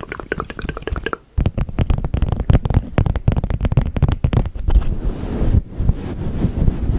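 Close-miked ASMR mic triggers: hands rubbing and brushing directly on the microphone, a dense low rumble crackling with many small clicks. This starts about a second in, after brief soft mouth sounds.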